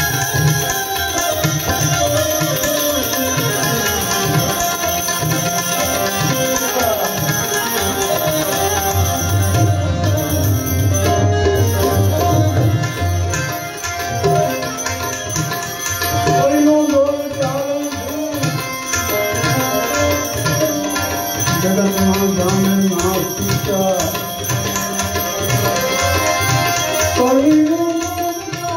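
Harmonium and tabla playing a Gujarati devotional bhajan: sustained harmonium chords over a continuous run of tabla strokes.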